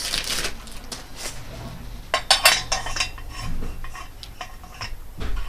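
Metal clicks and clinks from a stunt scooter deck's flex brake being handled, with a denser cluster of clinks about two seconds in.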